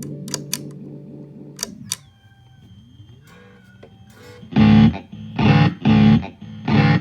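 Electric guitar through an Electro-Harmonix Deluxe Memory Man analog delay (modded 550-TT with Panasonic MN3008 bucket-brigade chips), fully wet with feedback set high. A chord's repeats fade out over the first two seconds with a few sharp clicks, and faint gliding tones from the overclocked delay follow. From about four and a half seconds a loud chord pulses roughly twice a second.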